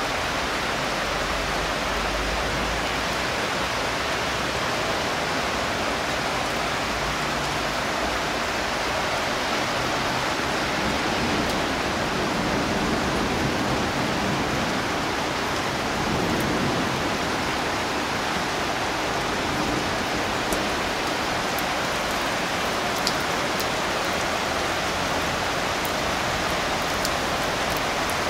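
Heavy thunderstorm rain pouring steadily over the city, a dense, even hiss of downpour, with a few sharp ticks in the second half.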